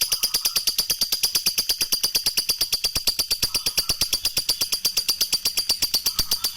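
Lovebird singing ngekek: a long, unbroken, fast chattering trill of sharp high notes at an even pace and level.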